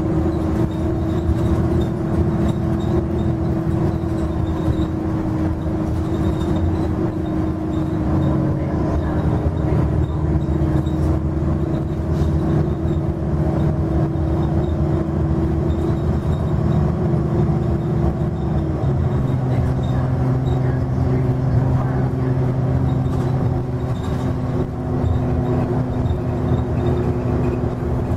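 Interior sound of a Nova Bus LFS under way: its Cummins ISL9 inline-six diesel running steadily with road rumble. A little under two-thirds of the way through, the engine's pitch drops in one step as the Allison B400R automatic transmission shifts up.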